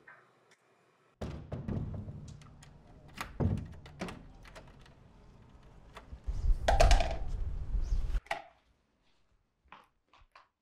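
A wooden front door being shut and locked: a run of knocks and thuds from the door and its lock, with a loud rattling stretch about two thirds of the way in. Faint footstep taps follow near the end.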